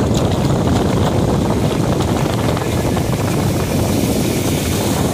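Steady wind noise on the microphone over the wash of shallow surf running in across sand.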